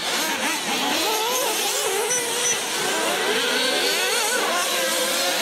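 Several radio-controlled racing buggies' small nitro engines revving up and down over one another, their pitches rising and falling constantly.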